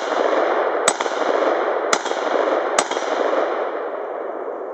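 AR-15 with an LAR Grizzly OPS4 side-charging upper, 16-inch carbine barrel and A2 flash hider firing three semi-automatic shots about a second apart. Each report hangs in a long echo that fades slowly. These are the first shots from the freshly assembled upper, and it cycles properly.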